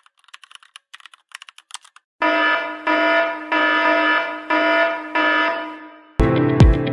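Faint keyboard typing clicks for about two seconds, then a loud alarm-clock tone beeping in a steady pulse a little under twice a second. Near the end an electronic music beat with heavy kick drums comes in.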